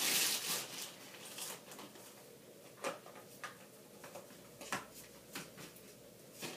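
Plastic wrapping crinkling as a stack of hard plastic sport-stacking cups is pulled out of it, loudest in the first second. A handful of light plastic clicks follow as the cups are handled and separated.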